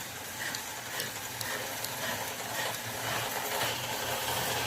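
Faint, irregular mechanical clicks over a steady hiss, with the Hilux's diesel engine stalled and silent.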